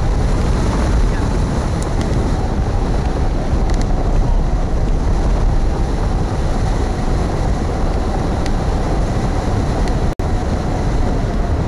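Strong wind rushing over the microphone of a wing-mounted camera on a hang glider in flight: a steady, loud rumbling rush, cutting out for an instant near the end.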